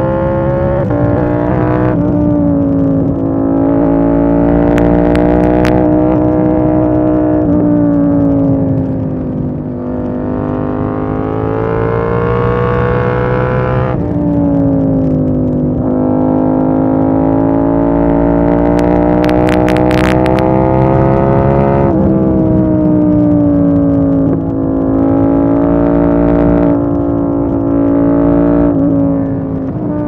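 KTM 890 Duke R's 889 cc parallel-twin engine pulling hard at speed. Its pitch climbs and drops again and again as the throttle opens and closes, with a few abrupt breaks in the note. Brief crackles come through on the microphone about five seconds in and again around twenty seconds.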